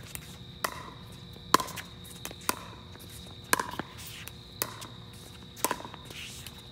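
Pickleball rally: paddles striking the plastic ball, six sharp hits at roughly one-second intervals, each with a short ringing tail.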